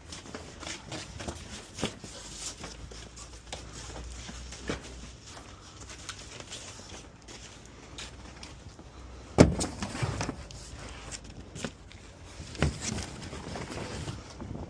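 Cardboard boxes being handled and tossed, with scattered knocks and rustling; a sharp thump about nine seconds in is the loudest, with another near thirteen seconds.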